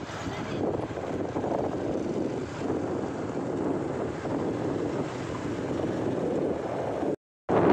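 Steady rush of wind and road noise from a moving vehicle, wind buffeting the phone's microphone, swelling and easing. The sound drops out briefly near the end.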